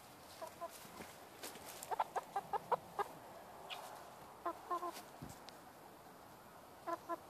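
A barred hen clucking in short runs of quick notes, with pauses between the runs.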